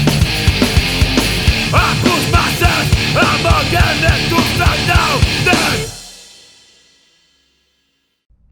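Rock music with a driving drum beat, fading out about six seconds in to near silence.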